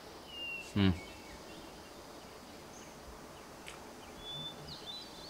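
Quiet outdoor background with small birds chirping a few times, mostly in the second half. A brief vocal sound from a person, a short grunt or murmur, comes about a second in and is the loudest thing.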